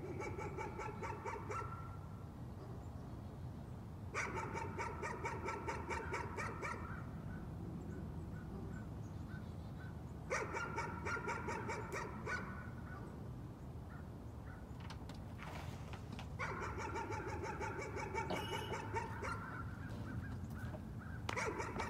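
A dog barking in rapid runs of barks, five runs of two to three seconds each with pauses of a few seconds between: persistent nuisance barking.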